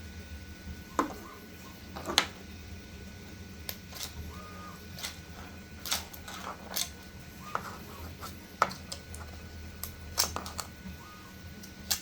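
Stanley knife cutting into a 3D-printed plastic part, the printed base and supports cracking and snapping off in irregular sharp clicks, a dozen or more, the loudest about two seconds in and near the middle.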